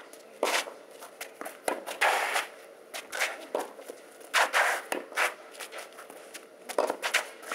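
Tennis rally on a clay court: sharp knocks of racket on ball and ball bouncing, mixed with tennis shoes scuffing and sliding on the clay as the player runs. The hits and scrapes come irregularly, several seconds' worth of quick steps between shots.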